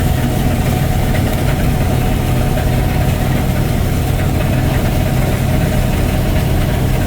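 Engine idling steadily, a loud even drone that does not change pitch.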